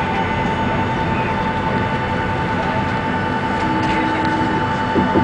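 Jet engine noise heard inside the cabin of a Boeing 757-200 taxiing on its Rolls-Royce RB211 turbofans: a steady rumble with a constant high whine.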